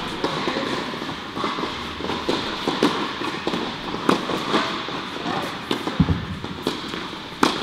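Tennis ball being hit with a racquet and bouncing on an indoor hard court: a run of sharp pops that ring in the hall, the loudest near the end.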